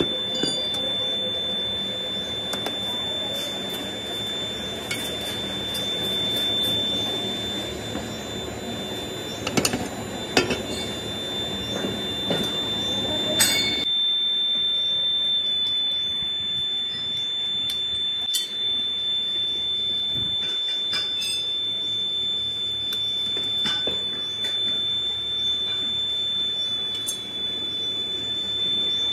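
A steady high-pitched whine runs throughout over a workshop din. During the first half there is the rough scraping and thudding of moulding sand being rammed into a steel flask with a metal rod, with a few sharp knocks just before this texture drops off about halfway through.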